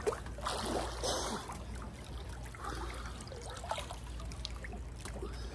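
Pool water trickling and lapping as a swimmer comes up from underwater and stands, water running off him, over a steady low hum.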